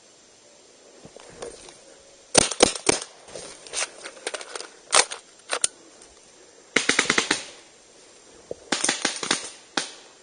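Paintball guns firing: sharp pops in several quick volleys, with a fast string of shots a little past the middle and more pops near the end.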